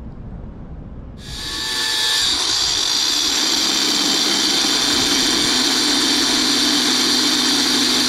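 Corded angle grinder switched on about a second in, then running steadily at full speed with a loud high hiss, cutting into the steel shell of a hermetic compressor.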